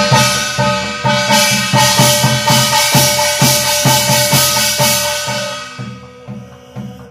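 Korean barrel drum (buk) beaten with a stick in a steady beat, about two to three strokes a second, under the steady ring of a brass gong for Korean shamanic ritual chanting. The gong's ringing and shimmer fade about five and a half seconds in while the drum beat goes on more softly.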